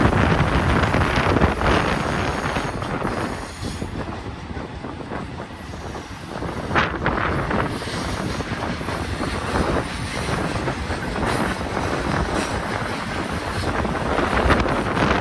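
BNSF intermodal freight train rolling through the cut, with the steady rumble and rattle of its cars and wheels on the rails.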